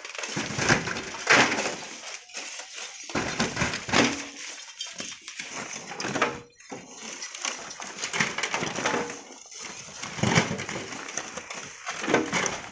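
Hand shovels, hoes and an iron bar digging into sand and gravel: irregular scraping and crunching strokes with occasional sharper knocks of metal on stone.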